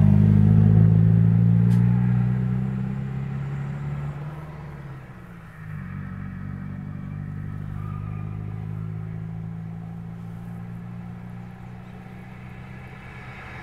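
A heavy truck passing close by: its low engine drone is loudest at the start and fades away over about five seconds, leaving a quieter, steady rumble of road traffic.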